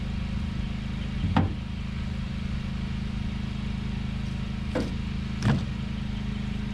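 Predator 459cc single-cylinder four-stroke engine running steadily at a constant speed during its break-in run, with a few short knocks about a second in and again near the end.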